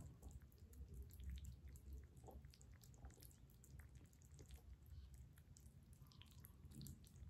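Kittens eating from bowls: faint, scattered clicks and smacks of lapping and chewing.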